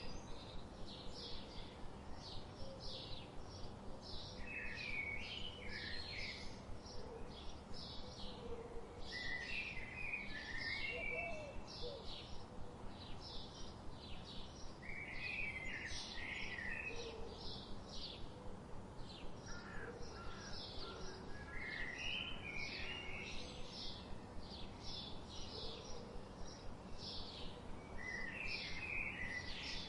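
Several birds singing over a steady background hiss: rapid short, high chirps continue throughout, and a lower warbled phrase comes in about every five to six seconds.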